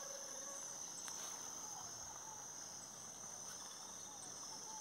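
Steady, high-pitched chorus of insects, with a few faint short bird chirps.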